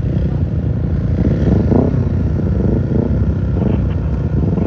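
Superbike engines running loudly, the pitch rising and falling several times.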